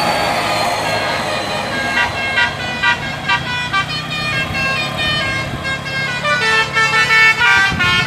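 Bus telolet horn of the 'Basuri' type, with trumpets mounted on the roof, playing a quick melody of short notes that starts about two seconds in. A low steady engine hum runs beneath it.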